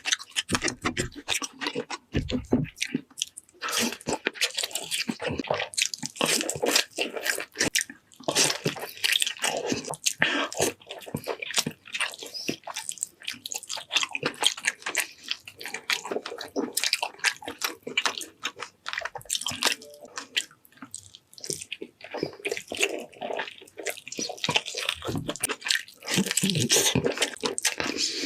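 Close-miked eating: chewing and biting through mouthfuls of food, a dense, irregular run of wet clicks, smacks and crunches.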